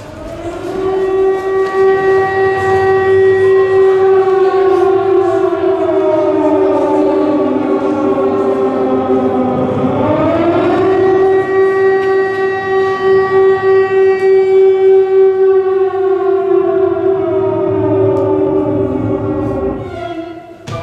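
Siren wailing: a held tone under a second tone that slowly sinks in pitch, swoops back up about ten seconds in, and sinks again near the end.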